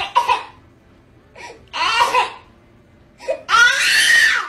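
A woman and a baby crying out in short bursts, then a long loud wail from the woman that rises and falls near the end.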